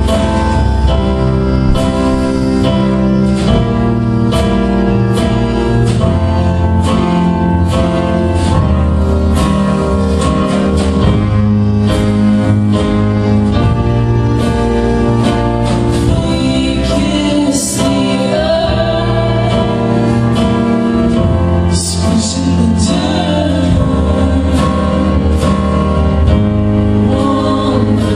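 Music: a song with sustained instrumental chords over a steady beat, with singing coming in over it in the second half.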